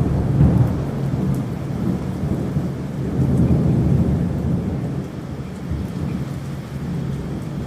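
Thunder rolling during a rainstorm: a long low rumble, loudest at the start and swelling again about three to four seconds in, then slowly fading, over the steady hiss of rain.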